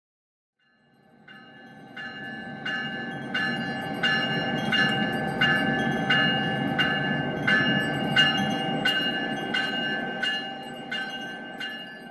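A locomotive bell ringing at a steady pace, about three strikes every two seconds, over the low rumble of a train. It fades in about a second in and fades out at the end.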